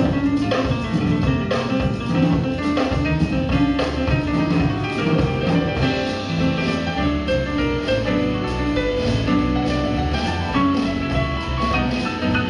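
A band playing music, with drums keeping a steady beat under sustained instrument notes.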